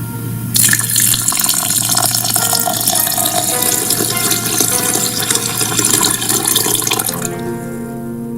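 Tap water running into a sink, starting about half a second in and shut off sharply near the end, over background music.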